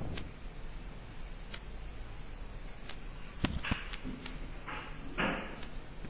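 Quiet room tone with faint scattered clicks, a soft thump about three and a half seconds in, and two short hissing noises near the end.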